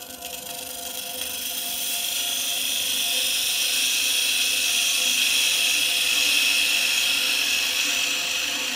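A turning tool taking a light facing cut across end-grain spalted beech spinning on a Record Power VB36 lathe, a hissing stream of shavings, to bring the inlay flush before sanding. The hiss builds over the first couple of seconds and eases near the end, over the lathe's steady hum.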